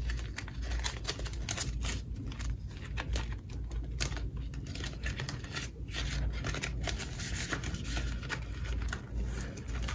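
Paper banknotes rustling and a clear plastic binder pouch crinkling as a stack of cash is handled and slid into it, with many small irregular ticks and taps.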